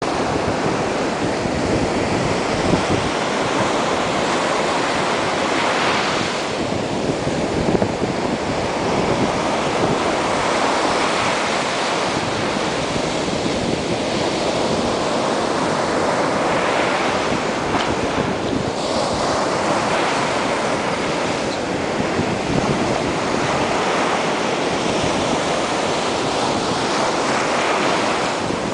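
Gulf surf washing up the beach, a steady rushing that swells now and then as waves come in, with wind on the microphone.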